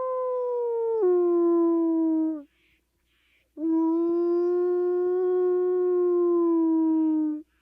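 Gray wolf howling twice. The first long howl steps down in pitch about a second in and then ends. After a short pause comes a second long, steady howl that sags slightly in pitch just before it stops.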